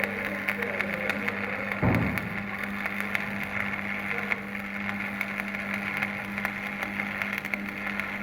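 Stick-welding arc crackling steadily as an electrode burns along a circular pipe weld, over a steady low hum. A short thud about two seconds in.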